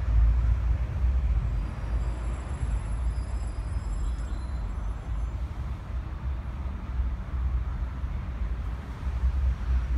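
Low, gusting rumble of wind buffeting the microphone, rising and falling in strength.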